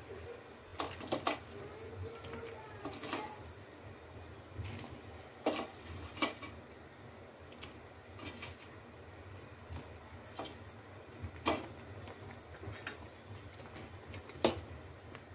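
Fish pieces being added to a kadhai of boiling fish curry: about ten scattered sharp clinks and knocks of a utensil against the metal pan over a low steady hiss.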